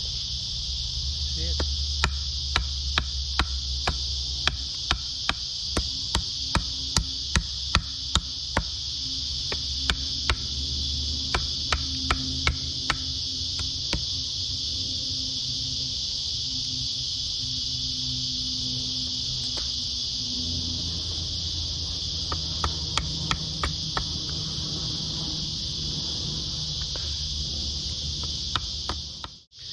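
Steady high-pitched drone of insects, with runs of sharp knocks about two a second from hand-tool work on wood.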